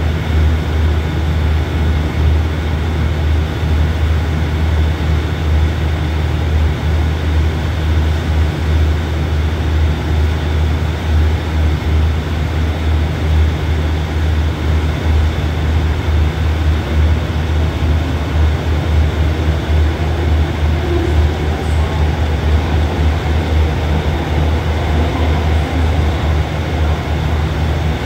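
A train standing idle, giving off a steady low rumble with a constant hum over it.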